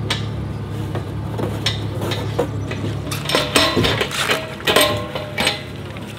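Sharp metallic clanks and clinks, coming thicker in the second half, from a fuel drum's hand pump and hose being worked while refuelling a rally car. A steady low hum runs underneath.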